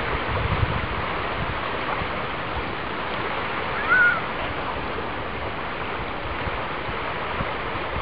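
Small Baltic Sea waves washing steadily onto a sandy shore, a constant rushing wash. About halfway through, a brief high call rises and then falls.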